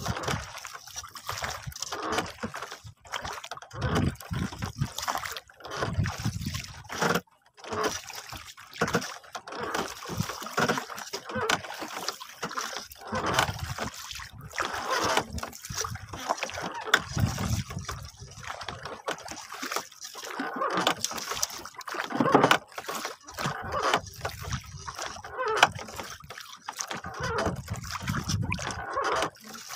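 Seawater splashing and sloshing against the hull of a small wooden boat in irregular surges, with gusts of wind buffeting the microphone.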